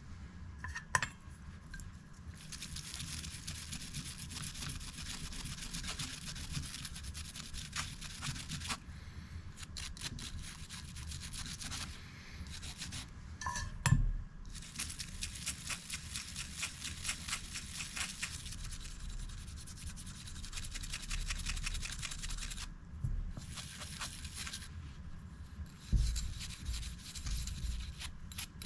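A small toothbrush scrubbing greasy pocket-knife parts wet with brake cleaner: quick scratchy bristle strokes in long spells with short pauses, and a few knocks and clinks as the metal parts are handled.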